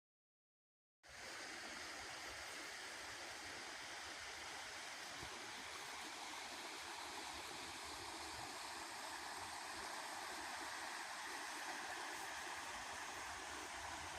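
Steady rush of running water that starts abruptly about a second in.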